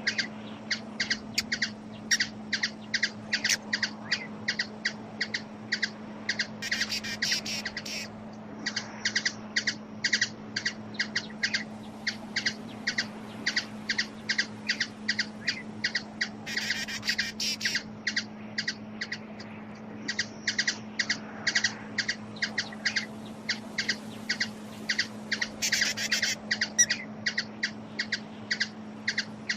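Hummingbird chip calls: short, sharp, high chips repeated several times a second, broken about every nine seconds by a brief burst of rapid chatter. A steady low hum runs underneath.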